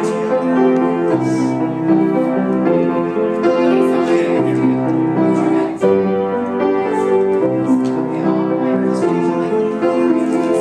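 Piano being played: a continuous flow of chords and melody notes, held and changing every half second or so.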